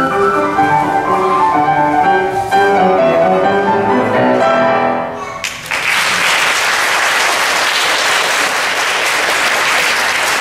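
Piano music plays and ends about five seconds in. Audience applause follows and goes on steadily.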